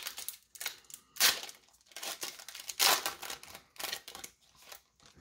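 Trading-card pack wrapper being crinkled and torn open by hand, in a string of short crackling bursts; the loudest come about a second in and again just before three seconds.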